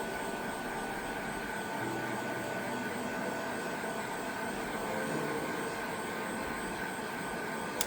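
Hot air gun blowing steadily, heating the phone's screen to soften its adhesive; a steady hiss with a faint whine in it, cut off by a click at the very end.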